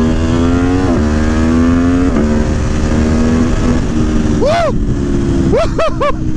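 Aprilia Tuono V4 1100 engine, fitted with a Gabro Stage 3 airbox and ECU flash, accelerating hard. Its note climbs and drops back at two quick-shifter upshifts, about one and two seconds in, then pulls on steadily. Wind rushes on the microphone, and near the end the rider lets out a "woo".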